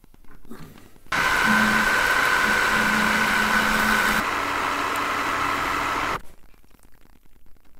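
Metal lathe turning a metal bar, a steady loud machining noise with a held whine, starting suddenly about a second in. The whine steps down a little in pitch about three seconds later, and the sound stops abruptly about six seconds in.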